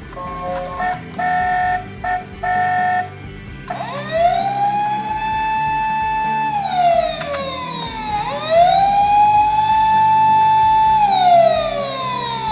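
Toy ambulance miniature car's electronic siren: a short run of beeping tones, then a siren that rises, holds its pitch and falls, twice.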